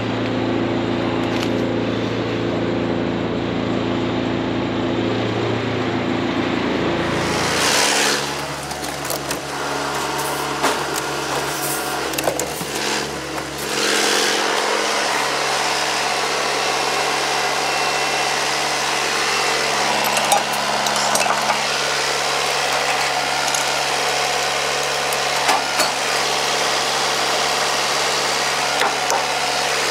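John Deere 6430 tractor's diesel engine running at low speed. About eight seconds in the sound changes abruptly, and knocks and clatter follow for several seconds before the engine settles into a steady idle.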